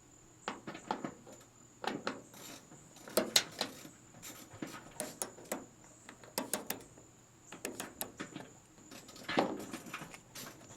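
Hand tools working on the truck's star (Torx) bolts: irregular metal clicks and short scrapes, with a brief falling squeak near the end.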